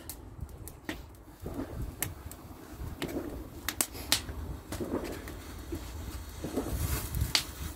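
Garden bonfire crackling: scattered, irregular sharp pops over a low rumble, with a brief hiss near the end.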